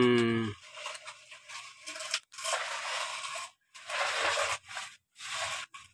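Hands scraping and scooping sand and loading it into a plastic toy dump truck's bed: several short scrapes with brief gaps between them.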